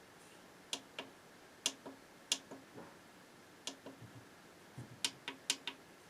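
About a dozen sharp, light clicks at irregular spacing, several in quick succession near the end.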